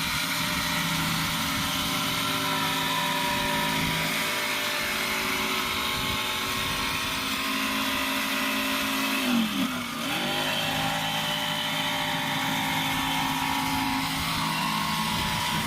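Electric jigsaw running and cutting plywood: a steady motor whine over a rasping cut. About nine and a half seconds in, the motor's pitch drops briefly and recovers.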